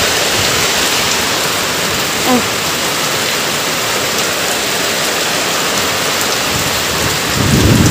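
Steady rain falling, a dense even hiss, with a brief low rumble near the end.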